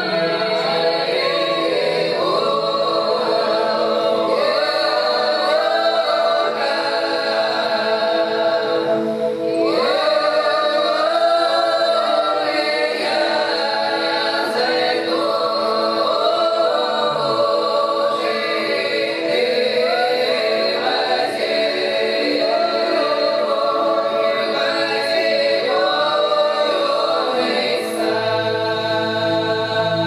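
Russian folk ensemble, mostly women's voices, singing a folk song in close harmony as a choir in full voice, phrase after phrase with short breaks between them. A low steady note comes in near the end.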